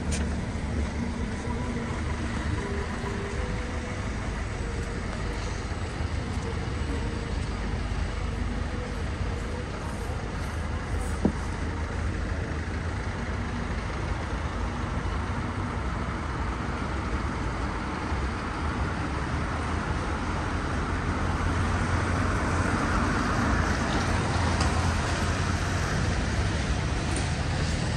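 Steady city street traffic: the running rumble of passing vehicles, swelling louder for a few seconds near the end as one passes close.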